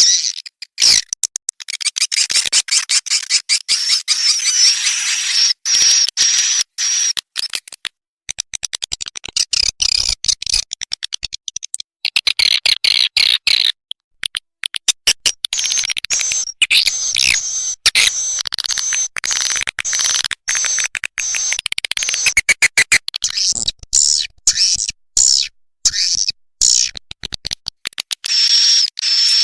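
Recorded edible-nest swiftlet calls played as a lure sound for swiftlet houses: rapid dry clicking runs mixed with high, wavering twittering chirps, going on without a break.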